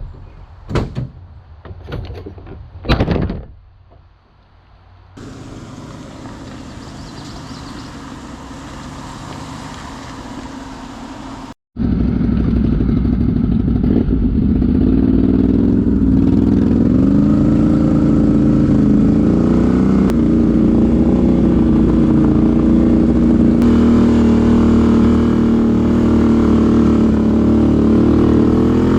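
A few knocks and clatters, then a motor vehicle's engine running. The engine gets louder about a third of the way in, and its pitch rises and falls as it speeds up and eases off.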